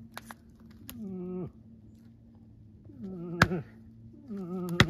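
Moose calls made by a hunter's voice: three short, wavering nasal calls, each dropping in pitch at the end. Two sharp cracks come in the second half, the first of them the loudest sound.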